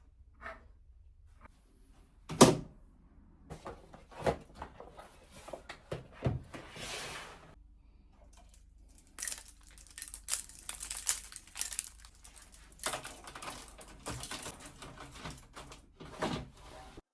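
Things being handled in a small room: scattered knocks with a loud thump about two and a half seconds in, then rustling and light clattering that grow busier in the second half.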